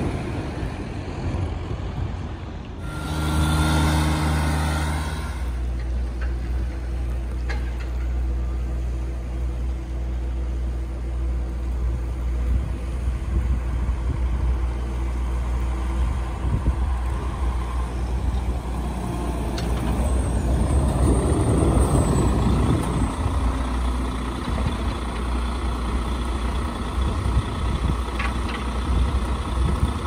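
Diesel engines of snowplow dump trucks running on a snowy street, a steady low hum, with one truck growing louder as it passes about twenty seconds in.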